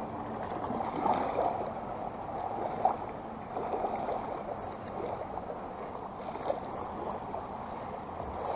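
Calm shallow seawater lapping and washing steadily, with a few small sharper splashes.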